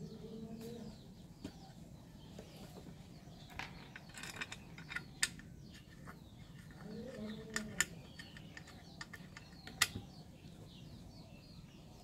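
Scattered light clicks and taps from hands fitting the iron motor housing of a ceiling fan together and setting its screws, with birds chirping faintly in the background.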